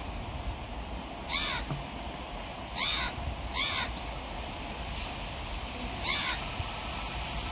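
A crow cawing, four short harsh caws spaced irregularly, over a steady low background rumble.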